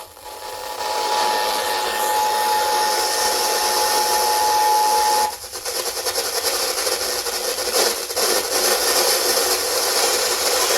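Radio receiver full of hiss and static with a steady alert tone coming through for about five seconds, then cut off abruptly, leaving only static with some crackle.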